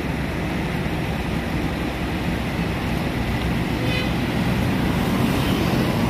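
Steady rumble of road traffic and vehicle engines, with a short, high horn-like tone about four seconds in.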